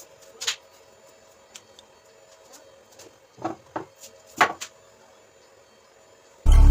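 A few short, light knocks and clicks with quiet gaps between them: one about half a second in, then a cluster of three or four around the middle. Loud background music cuts in near the end.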